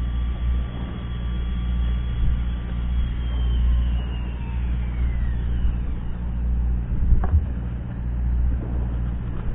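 Fishing boat's engine idling: a steady low drone. A faint high whine slides down in pitch and fades about four seconds in, and there is a brief knock near the end.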